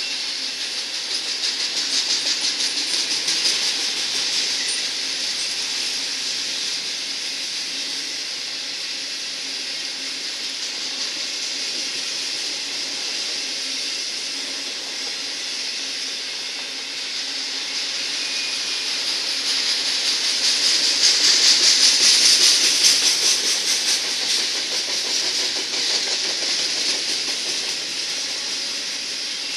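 Autorack freight cars rolling past on steel rails: a steady, high-pitched rush of wheels on track that swells louder twice, a couple of seconds in and again about two-thirds of the way through.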